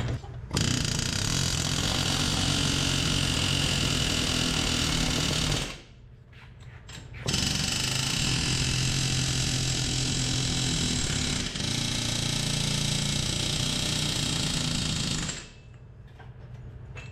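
Pneumatic air hammer rattling against a wheel bearing hub to drive it out of the steering knuckle, where corrosion holds it. It runs in two long bursts with a short pause between them, about five seconds in.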